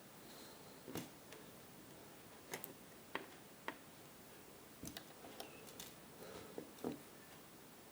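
Light, irregular clicks and taps, about seven in eight seconds, from small electronic components and tools being handled on a workbench.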